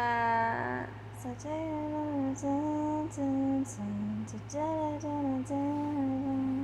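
A woman singing a slow melody unaccompanied, in held notes that step up and down with short breaks, over a steady low electrical hum.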